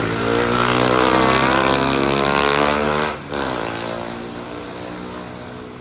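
A motor vehicle's engine running close by, revving up, breaking off briefly about three seconds in as if shifting gear, then picking up again and fading as it moves away.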